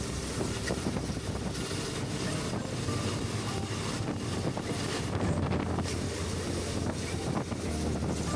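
Wind buffeting the microphone while riding a Suzuki V-Strom 650 motorcycle, with a steady low drone of engine and road noise underneath.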